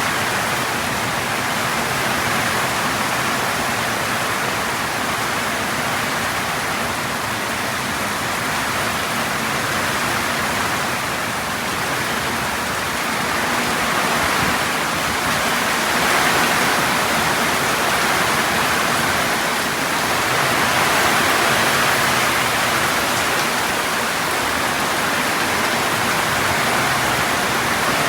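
Heavy, wind-driven rain pouring down steadily in a downpour, with a couple of swells in strength.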